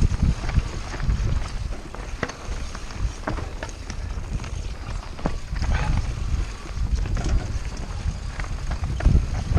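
Mountain bike riding fast over rough, rocky trail: tyres crunching over stones, with a steady run of irregular knocks and rattles from the bike and a low rumble of wind on the microphone.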